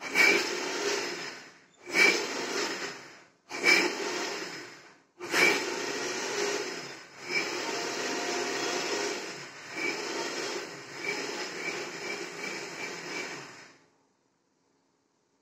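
Electric mixer grinder grinding a wet spice paste: three short runs of under two seconds each, each starting sharply and dying away, then one longer run of about eight seconds that swells and sags before it switches off.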